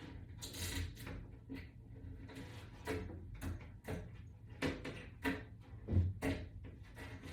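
Irregular light clicks and knocks from hands fitting screws, washers and toggle-bolt butterflies into a wall-mount bracket, with the sharpest knocks about six seconds in.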